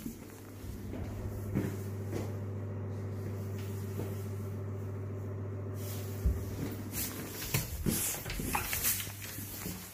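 A steady low electrical hum, as from a bathroom extractor fan or light fitting, comes on right at the start and runs on. A thump comes about six seconds in, followed by a few knocks and rustles from handling.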